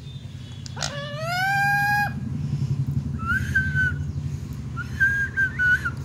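A rose-ringed parakeet (Indian ringneck) calls. About a second in comes one long call that rises in pitch and then holds, and it is followed by two shorter, higher wavering calls in the middle and near the end. A low steady hum runs underneath.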